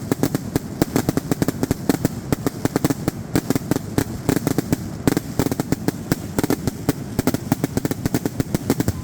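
Fireworks finale barrage: a rapid, unbroken string of bangs and crackling reports, several every second.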